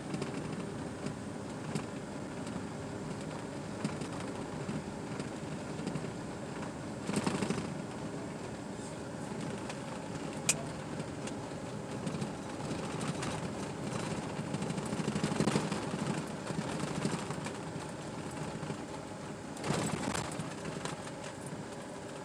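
Vehicle driving slowly along a park road, heard from inside the cabin: a steady engine and tyre rumble, swelling louder a few times, with a single sharp click about halfway through.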